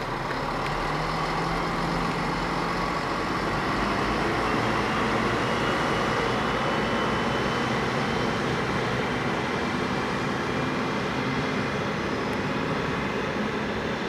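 Two coupled Regio-Shuttle RS1 diesel railcars pulling into the station, their diesel engines running steadily as they approach the platform.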